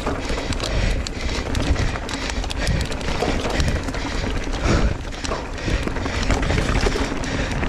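A mountain bike running fast down a dirt singletrack: steady rushing wind noise and tyre roar, broken by a constant patter of quick clicks and knocks from the tyres hitting roots and rocks and the bike rattling.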